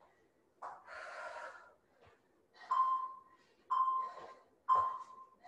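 Heavy breathing of a woman working out with dumbbells: a long exhale about a second in, then three sharp breaths about a second apart, each trailing a short steady tone.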